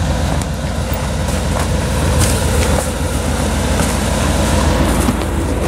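Engine of a loader tractor running steadily, a low, even rumble.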